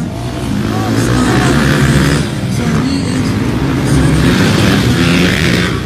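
Motocross dirt bike engines revving hard, their pitch rising and falling as the riders work the throttle and shift.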